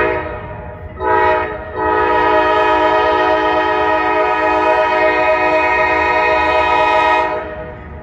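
Ex-Conrail GE Dash 8 locomotive's multi-note air horn sounding for a grade crossing: the end of one blast, a short blast about a second in, then a long blast of about five seconds. Under it runs the low rumble of the approaching freight's diesel locomotives.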